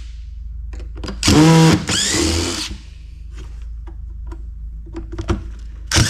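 Cordless power drill/driver whirring in short bursts that spin up in pitch, two close together in the middle and another near the end, as screws are backed out, with small clicks of handling between.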